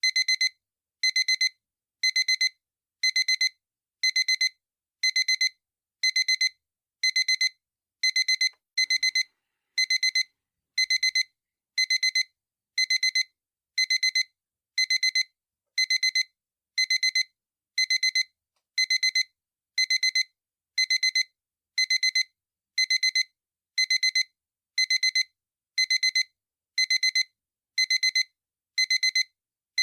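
Digital alarm clock beeping: short bursts of rapid high-pitched beeps, about one burst a second, repeating evenly.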